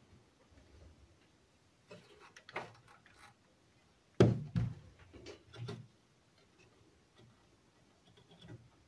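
Scattered clicks and knocks of hands and tools working on an old tube radio's chassis, the loudest a sharp knock about four seconds in.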